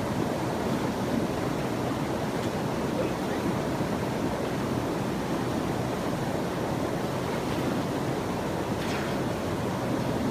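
Steady rushing water, an even wash of noise with no breaks.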